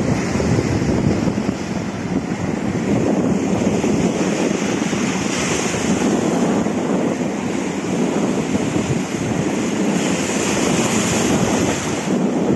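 Rough sea surf breaking and washing over the shore rocks, with strong wind buffeting the microphone.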